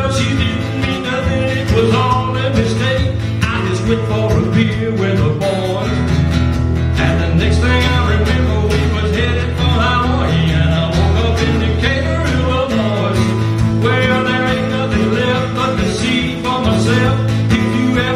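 Live country music with acoustic guitar: steady low bass notes that change every few seconds under a wavering melodic line.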